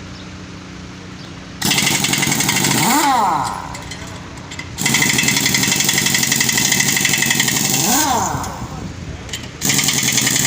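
An impact wrench run in three bursts of about three seconds each, a fast hammering rattle that starts and stops abruptly, as wheel nuts are worked during a truck trailer tyre change.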